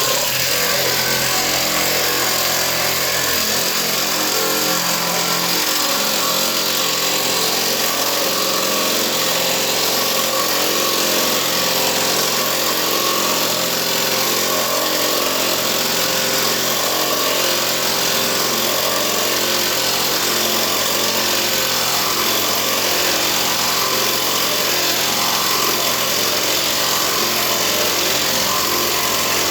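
A motor-driven machine running steadily and loudly, switched on abruptly right at the start.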